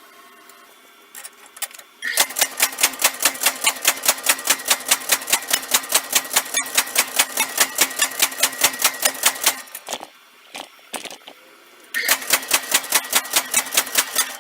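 Power hammer striking in fast, even blows, about five a second, for about seven seconds. It stops with a few single knocks, then runs again for about two seconds near the end. The hammer is working through a home-made dagger-forming die.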